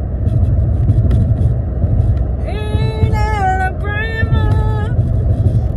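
Steady low road and engine rumble inside a moving car's cabin. Partway through, a girl's voice sings two long held phrases.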